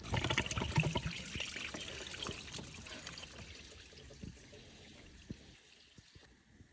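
Engine coolant pouring and trickling, loudest at first and dying away to a faint trickle over about five seconds.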